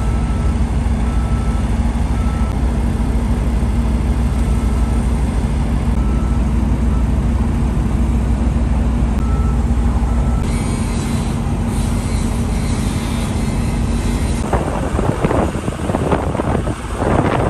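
A welding machine hums steadily at a constant pitch. About three seconds before the end, an Innershield self-shielded flux-cored arc strikes and crackles irregularly.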